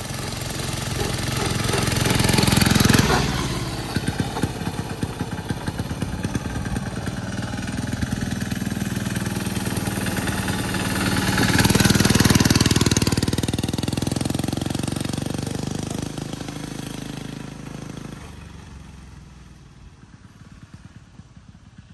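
Small single-cylinder Chinese 196cc diesel engine on a ride-on kart running under load as it drives past. It is loudest about 3 seconds in and again around 12 seconds, then fades as the vehicle drives away.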